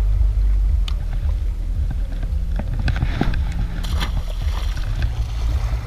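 Steady low rumble of wind on the microphone with small knocks, and about four seconds in a splash as a released barracuda drops into the sea.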